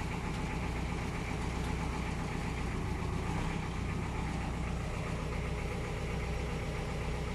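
An engine idling with a steady, even low drone.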